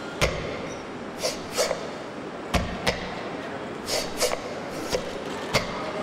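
Performance soundtrack: a steady noisy rushing texture punctuated by sharp percussive hits at irregular intervals, about nine in all.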